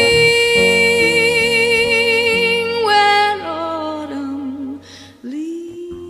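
Background music: a long held note with vibrato closes out one song, falling away between about three and five seconds in. After a brief lull a new piece begins with a steady held note.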